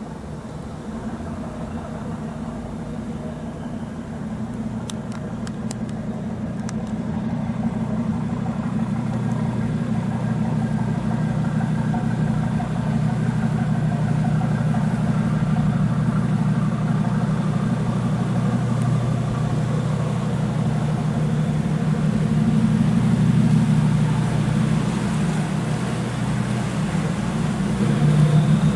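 A large motor yacht's engines running steadily, a low hum that grows louder as the boat comes closer.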